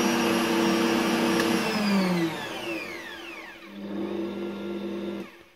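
Bosch MUM58L20 stand mixer's motor running with the kneading hook turning in an empty bowl, a steady whine. About two seconds in it winds down, spins back up about a second and a half later, and stops just before the end as it is switched off.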